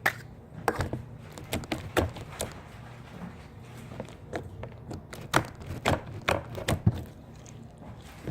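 Slime with foam beads being squeezed and poked by hand, giving a run of irregular short clicks and pops.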